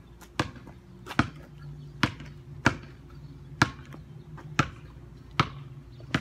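Basketball being dribbled, bouncing about eight times at an uneven pace of roughly one bounce a second, each a short sharp slap.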